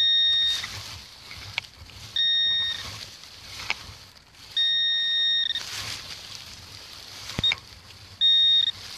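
Metal detector target tone: five steady high beeps of the same pitch, each under a second and the middle one longest, as the coil passes back and forth over a target in a heap of dug soil, with soft rustling and a few clicks in between. The signal is a high, solid one (it reads 85) from an alloy bottle top.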